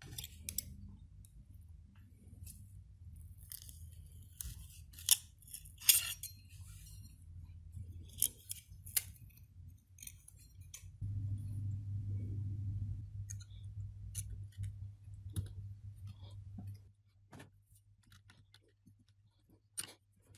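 A flat blade prying and scraping a copper-clad circuit board off the wooden bed of a CNC mill: scattered scrapes and sharp clicks, the loudest about five and six seconds in. Under it a low steady hum gets louder about halfway through and cuts out a few seconds before the end.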